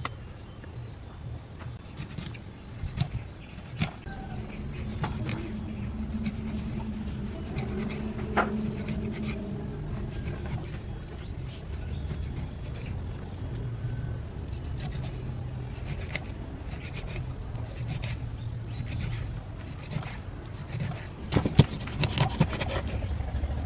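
Cleaver knocking and tapping on a wooden chopping board as it scores and cuts through a fish, with a cluster of louder chops near the end, over a steady low hum.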